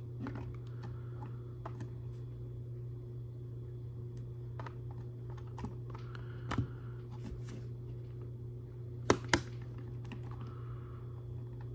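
Plastic LEGO pieces clicking and clacking as they are handled and pressed together, in scattered taps with two sharper clicks about nine seconds in, over a steady low hum.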